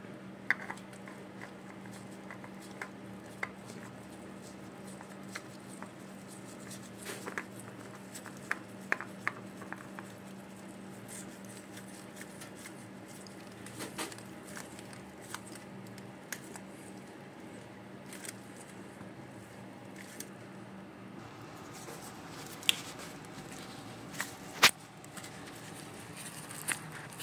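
Light clicks and taps of a spin-on oil filter being screwed on by a gloved hand, with a sharper knock near the end. A steady low hum runs underneath and stops about three-quarters of the way through.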